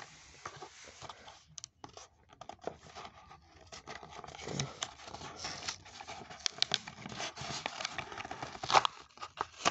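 Blister pack of a carded Matchbox toy being torn and crinkled open by hand: a continuous run of plastic crackling, ripping and sharp clicks.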